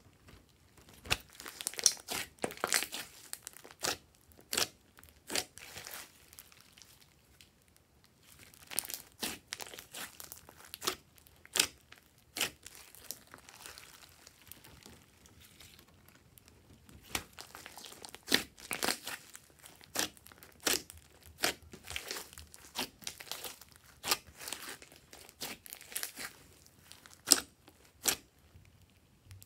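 Hands squishing and poking a big mass of glossy clear-base slime, giving irregular flurries of sharp wet clicks and pops as trapped air pockets burst. There are brief quieter pauses about a third and half way through.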